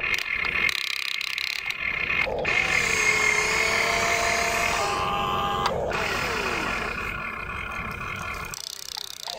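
Small electric motors and gears of a radio-controlled toy excavator whining as it raises its loaded bucket and swings its upper body round, the pitch shifting with each movement.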